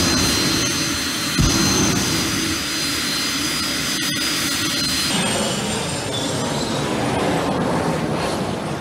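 Helicopter turbine engine in a minivan, a steady high whine with two low booms, one right at the start and one about a second and a half in, as it shoots flame from the exhaust. About five seconds in the sound changes abruptly to a thinner, more distant whine as the van drives away.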